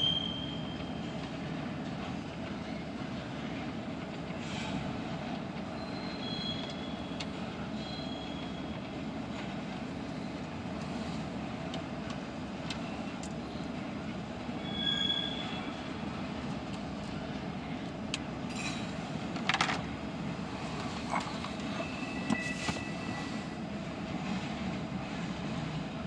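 Double-stack intermodal freight train rolling past with a steady rumble of wheels on rail. A few short, high squeals come from the wheels. There is one sharp knock about two-thirds of the way through.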